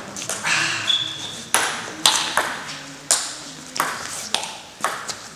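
Table tennis rally: a table tennis ball knocked back and forth, striking paddles and the table in quick, sharp hits about twice a second.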